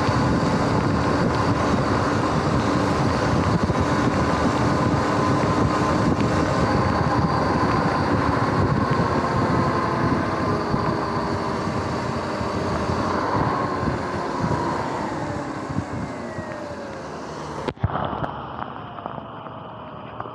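Riding an electric bike on a wet road: loud wind rush and road noise, with the motor's steady whine underneath. In the last few seconds the whine falls in pitch and the noise fades as the bike slows. A sharp click comes near the end, after which the sound is duller and quieter.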